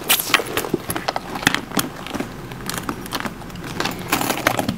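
Hands handling a quilted leather handbag and its metal chain strap: a quick, irregular string of clicks, clinks and rustles.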